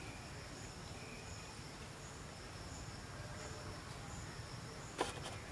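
Outdoor ambience of insects chirping in a faint, regular pulse about once a second, over a low steady rumble. A single sharp click comes about five seconds in.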